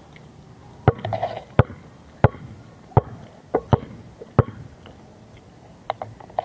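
A basketball bouncing on a concrete court: about seven sharp bounces, most of them roughly two-thirds of a second apart, that stop a little past the middle.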